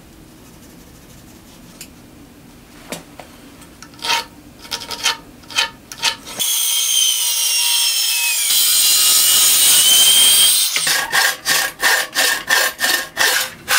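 A few light taps, then a power saw cutting into a hemlock 6x6 beam for about four seconds with a whining blade. It is followed by a coarse hand saw finishing the crosscut in quick back-and-forth strokes.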